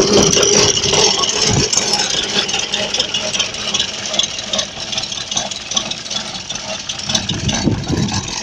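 Vintage Saunderson tractor's engine running, louder for the first second and a half, then settling to a steadier, quieter run with a light rattle.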